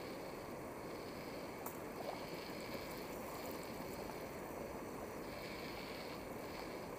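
Steady rushing of water around a boat moving along an underground river, with a sharp click about a second and a half in.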